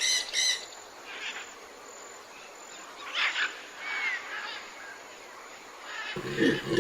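Short, high animal calls and a brief gliding whistle over a steady outdoor hiss. Near the end the sound cuts abruptly to a rapid series of low grunts.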